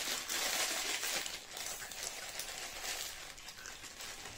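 Plastic Wai Wai instant-noodle packet crinkling as crushed dry noodles are shaken out of it into a glass bowl. The rustling is strongest in the first second and a half, then thins to scattered crackles.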